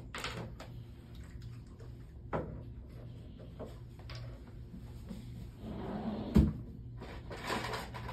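Scattered light knocks, clicks and rustling of handling on an exam table, with one sharp thump a little over six seconds in, over a steady low hum.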